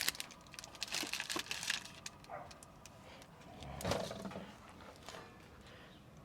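Faint rustling and light clicks of foil-backed stick-on sound deadening foam being handled, with a soft bump about four seconds in.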